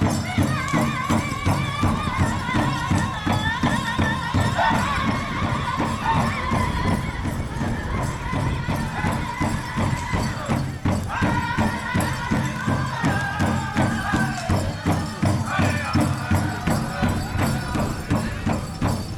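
Powwow drum group singing a contest song in high, wavering voices over a steady beat on a big drum, with dancers' bells jingling. The singing breaks off briefly about eleven seconds in, then picks up again.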